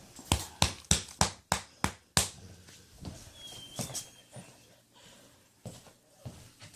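A run of about seven sharp clicks, roughly three a second, in the first two seconds. After that a faint, high, thin whine comes from a boxer–bull mastiff whining for attention.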